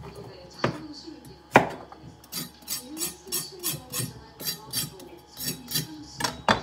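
Kitchen knife chopping cucumbers on a plastic cutting board: two sharp chops in the first two seconds, then a run of lighter, even strokes about three a second, and one more sharp chop near the end. Faint background music or voices underneath.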